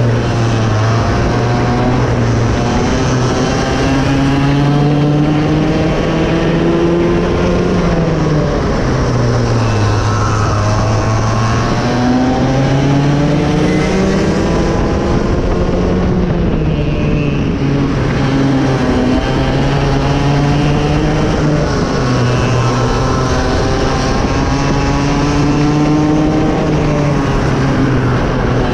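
Raket 120 two-stroke kart engine running hard, its pitch climbing and falling in long sweeps every few seconds as the driver accelerates and backs off.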